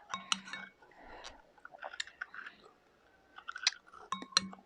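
Close-up eating sounds: chewing and biting with scattered small clicks and crackles.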